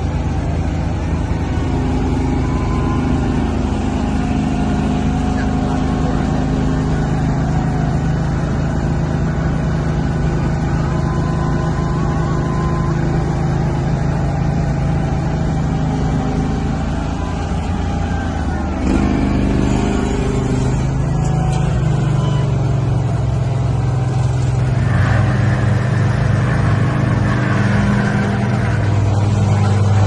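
Diesel engines of an asphalt paver and a double-drum roller running steadily. About 19 seconds in, the engine sound gets louder and shifts in pitch.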